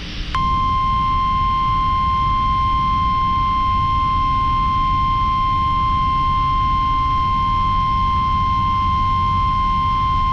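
NOAA Weather Radio warning alarm tone: a single steady 1050 Hz tone over low radio hiss, starting a moment in and cutting off about ten seconds later. It signals that a warning, here a severe thunderstorm warning, is about to be broadcast.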